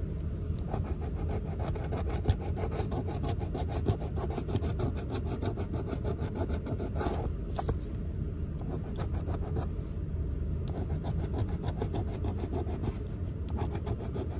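A coin scratching the coating off a lottery scratch-off ticket: a steady rasping made of rapid back-and-forth strokes.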